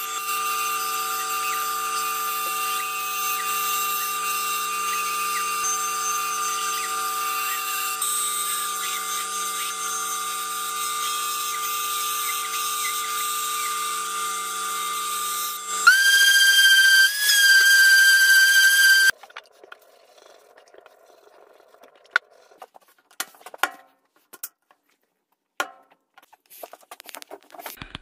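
Benchtop bandsaw running and cutting through a wooden board, a steady whine with several fixed tones. About sixteen seconds in it gives way to a louder, higher whine that cuts off suddenly some three seconds later, followed by faint scattered clicks.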